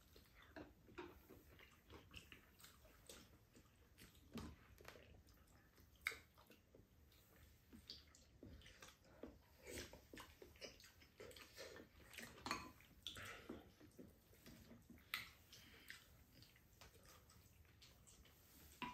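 Faint eating sounds: chewing and slurping, with spoons and chopsticks tapping now and then against bowls and a pan in short scattered clicks.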